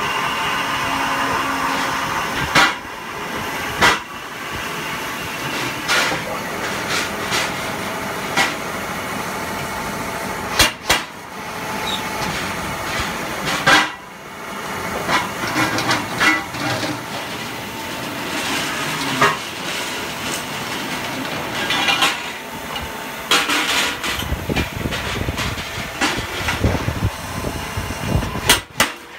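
Metal-cutting band saw running through galvanized steel pipe: a steady machine noise with a faint whine and hiss, broken by several sharp metallic clanks. A lower rumble joins in over the last few seconds.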